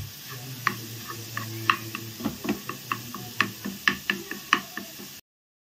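Plastic spatula stirring and scraping crumbled paneer bhurji in a nonstick frying pan, with irregular clicks and taps about twice a second as it knocks the pan. The sound cuts off suddenly near the end.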